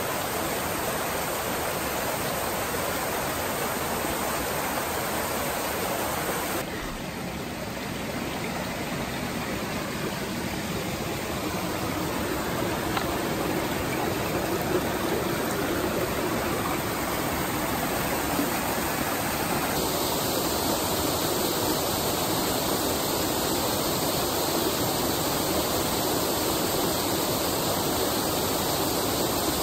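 Steady rush of water from a small waterfall pouring into its plunge pool and the stream below. The sound changes abruptly twice, about seven seconds in and again about twenty seconds in.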